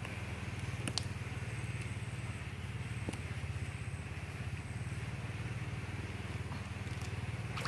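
Low, steady hum of a small engine running at an even speed, with a couple of faint clicks.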